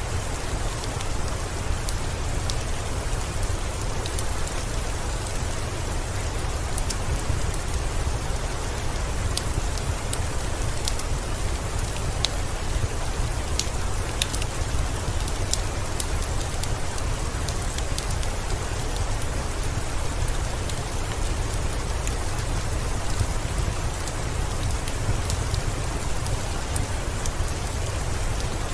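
Steady heavy rain falling, an even hiss with a deep low rumble, mixed with scattered sharp pops from a crackling wood fire in a fireplace.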